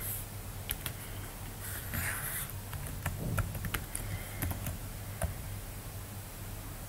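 Irregular light clicks and taps of a computer keyboard and mouse, over a low steady hum.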